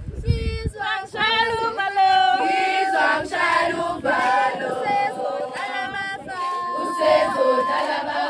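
Group of voices singing a song together, choir-style, with some long held notes.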